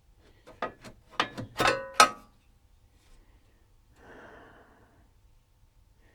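A quick run of sharp metallic clicks and clanks, some briefly ringing, the last the loudest, from metal parts of an old oscilloscope chassis being handled during its teardown. About four seconds in comes a short soft breathy rustle.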